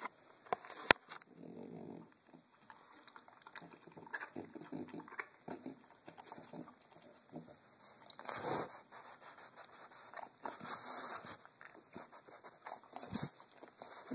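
French Bulldog's breathing and movement noises close to the microphone, in short irregular spells, with one sharp click about a second in.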